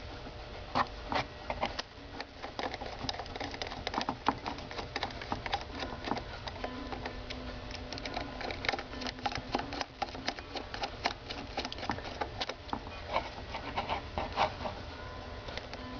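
Small Phillips screwdriver driving the float bowl mounting screws into a Keihin PWK carburetor body: a continuous run of small, irregular clicks and scrapes of metal tool on screw heads.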